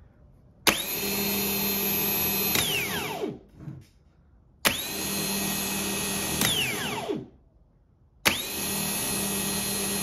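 GM starter motor bench-run off a battery three times: each run opens with a sharp solenoid click, spins at a steady high whine for about two seconds, then winds down in falling pitch when the button is released; the third run is still spinning at the end. This is what a healthy starter sounds like.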